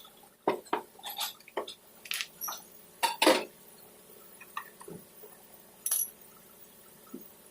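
Irregular light clinks and taps of small hard objects being handled, a dozen or so short knocks with gaps between them; the loudest comes about three seconds in.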